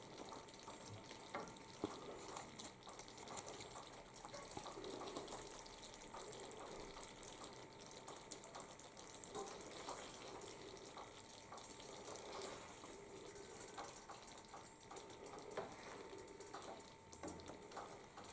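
Faint, wet stirring of thick sausage gravy with a plastic spoon in a skillet, with many small irregular clicks and soft sloshes.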